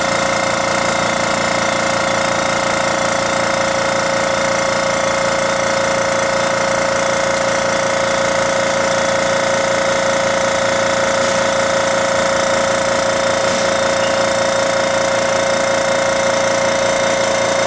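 Small electric air compressor running steadily under load with an even, unchanging hum, pumping its pressure up toward its 19-bar cut-off.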